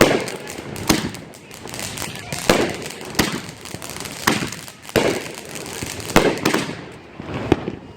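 Backyard consumer fireworks going off in a quick series of sharp bangs, about one to two a second, each with a trailing echo.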